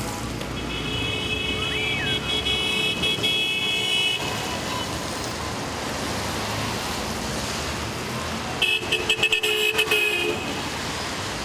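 Street traffic with vehicle horns: one long honk starting about half a second in and lasting about three and a half seconds, then near the end a quick series of short beeps, over a steady traffic hum.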